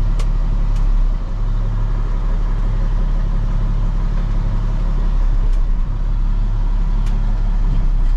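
Diesel engine of a 2007 International 7500 plow truck idling steadily, heard from inside the cab, with a few faint ticks.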